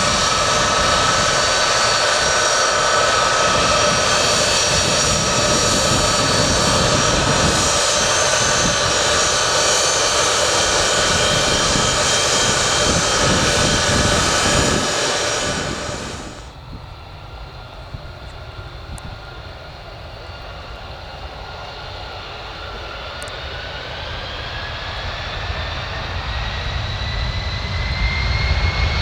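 Boeing C-17A Globemaster III's four turbofan engines running loud and steady, with several whining tones over the jet noise. About sixteen seconds in the sound cuts sharply to a quieter jet whine that climbs steadily in pitch and grows louder.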